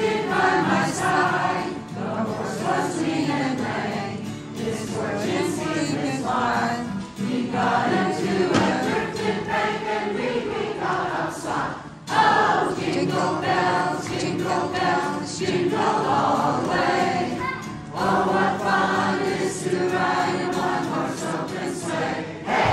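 Choir singing a Christmas song, accompanied by an acoustic guitar.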